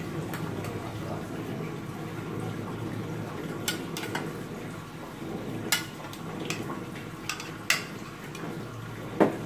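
Carrot and tofu broth simmering in a steel wok over a gas flame: a steady low bubbling hiss. A few short sharp clicks and knocks come scattered through it as tofu cubes are put in, the loudest near the end.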